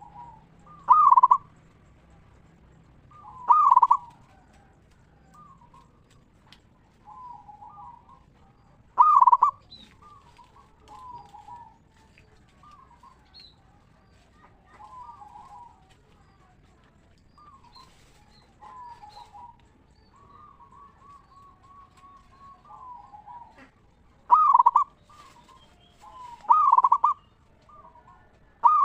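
Zebra doves (perkutut) cooing. Several birds give short phrases of rolling coo notes: a few loud phrases near the start and again near the end, with softer coos from farther birds between them.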